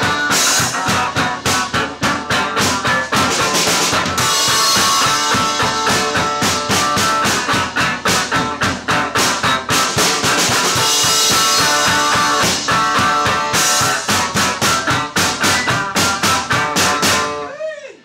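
A rock band playing live: distorted electric guitar over a driving drum kit with a steady beat and stretches of cymbal wash. The song stops abruptly about a second before the end.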